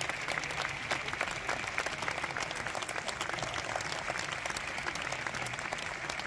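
Dense, steady patter of many small sharp hits with no break.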